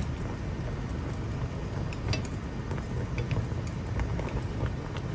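Chicken wings boiling hard in Dr Pepper, the soda foaming and bubbling in a steady low rush. A few light clicks of chopsticks against the pot.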